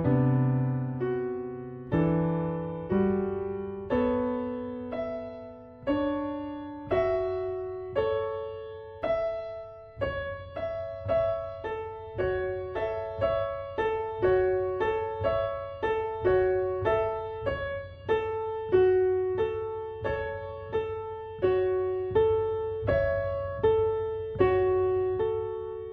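Solo piano music: a slow melody of single notes and chords, each struck and left to ring away, about one a second at first and quickening to about two a second from around ten seconds in.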